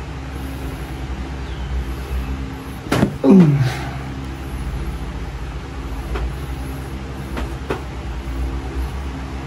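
A steady low hum runs throughout. About three seconds in comes a sharp click, followed at once by a person's short groan that falls in pitch, and a few fainter clicks follow later.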